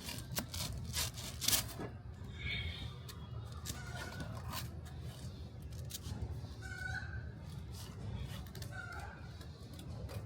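Chickens clucking: short calls every two seconds or so over a steady low background rumble, with several sharp clicks or knocks in the first two seconds.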